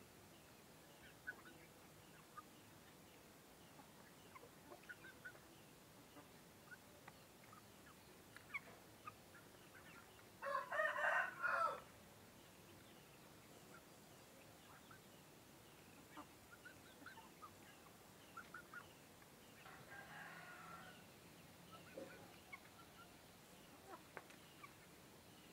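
A male chicken of an egg-laying breed crowing once loudly about ten seconds in, with a fainter crow around twenty seconds in. Faint short clucks and chirps are scattered between them.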